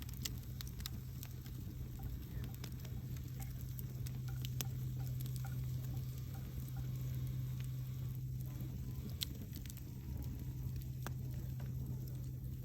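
Wood campfire crackling, with scattered sharp pops and snaps over a steady low drone.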